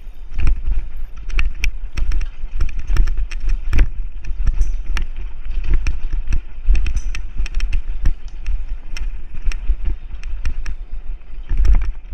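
Mountain bike riding fast down rough dirt singletrack: wind rumbling heavily over the on-board camera's microphone, with frequent sharp clatters and knocks as the bike jolts over roots and rocks.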